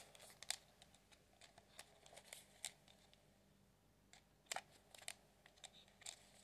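Faint, scattered clicks and light taps of small pieces of jewelry being handled and put back into a container, with a few sharper clicks standing out.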